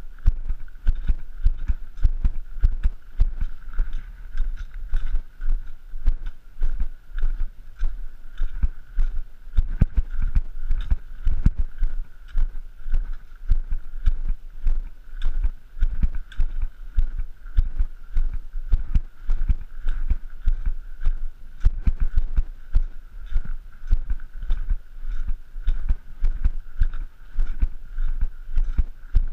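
A hiker's footsteps on a gravel and dirt trail: a steady, even run of thuds, about two a second, with a faint steady high tone underneath.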